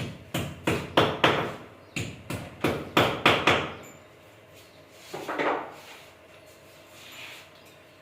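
Hammer blows, about three a second in two quick runs of about five strikes each, with a short break between them. A single duller sound follows about five seconds in.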